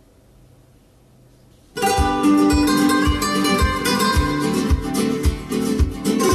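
Recorded guitar music with a steady low beat, played back over a pair of Vandersteen 2Ci loudspeakers driven by a McIntosh MC2500 power amplifier. It starts suddenly about two seconds in, after a faint low hum.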